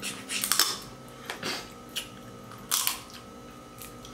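Boiled blue crab shells cracking and crunching as the crab is broken apart and eaten, in about five short bursts.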